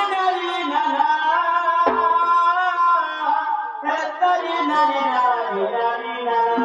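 A singer's voice amplified through a microphone, a sung folk melody with bending, sustained notes over musical accompaniment.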